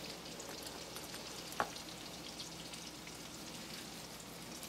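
Portobello mushrooms frying in a skillet of butter and steak juices: a steady sizzle, with a single short click about a second and a half in.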